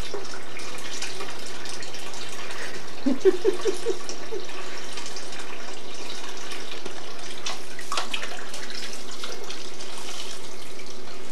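Kitchen faucet running in a steady stream into a partly filled sink, the water splashing lightly around a bathing baby. About three seconds in come a few short vocal sounds.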